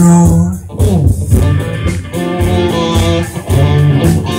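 Live rock band playing amplified: electric guitars and bass over a drum kit with cymbal hits.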